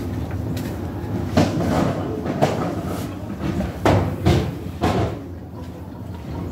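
Footsteps scuffing through wood-shavings stall bedding, with several sharp knocks and scuffs in the first five seconds over a steady low rumble.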